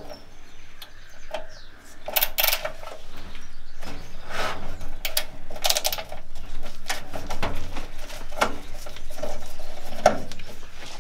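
Hand screwdriver undoing the cover screws on a classic Mini's old metal heater box: irregular clicks, squeaks and scrapes as the bit turns in the screw heads and shifts on the casing.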